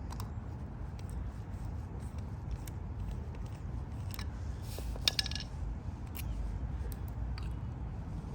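Small metallic clicks and scrapes of a Phillips screwdriver working the screws and parts of a two-stroke scooter carburetor during disassembly, with a quick cluster of sharper clicks about five seconds in, over a steady low background rumble.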